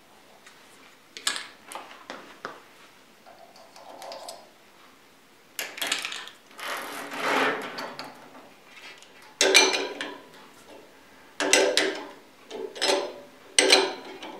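Flexible metal-armoured coolant hose being handled and fitted to a lathe's coolant nozzle: light clicks, a rustling scrape of the coiled metal hose, then four sharp metallic clinks with a short ring in the second half.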